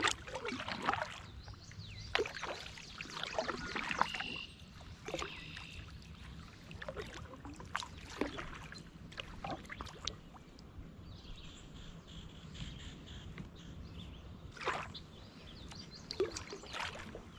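Kayak paddle dipping and splashing in lake water, with irregular drips and trickles between strokes.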